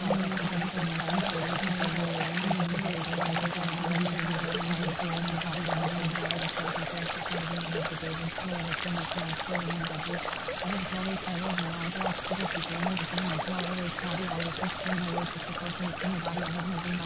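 Running water, a steady pouring, stream-like rush with fine trickling detail, over a low steady hum that breaks off briefly now and then.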